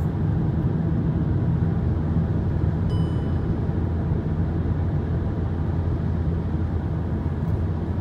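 Car cabin noise while driving at road speed: a steady low rumble of engine and tyres on a wet asphalt road.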